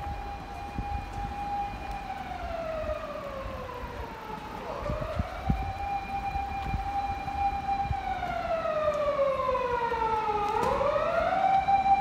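Japanese fire engine siren wailing in slow cycles: the pitch rises, holds high for about two to three seconds, then slides down over about three seconds before rising again. The cycle runs twice, and the siren grows louder near the end.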